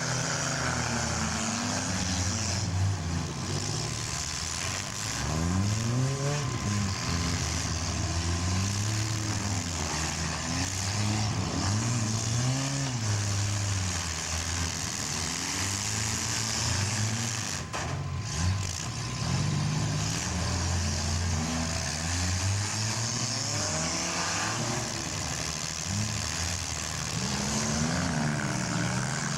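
Several small demolition derby cars' engines revving up and down over and over as they drive and ram one another, with a sharp crash about two-thirds of the way through.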